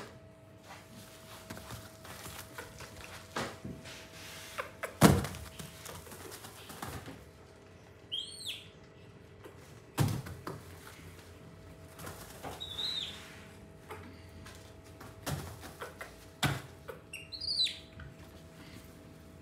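Scattered knocks and thumps, the loudest about five and ten seconds in, with three brief high chirps that rise and fall in pitch.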